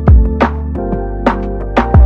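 Background music with a steady beat over held chords.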